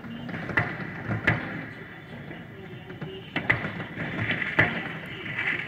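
City-wide New Year's fireworks: sharp bangs at irregular intervals, several in the first second and a half and a cluster around three and a half to four and a half seconds in, over a steady background of more distant popping and crackling.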